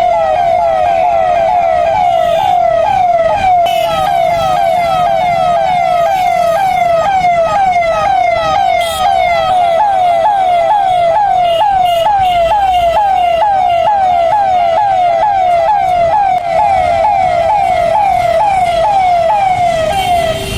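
Siren sounding in rapid, repeated falling sweeps, two or three a second. It is the signal for everyone to stop where they stand and put on their masks.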